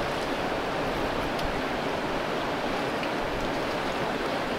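Steady rushing of mountain stream water.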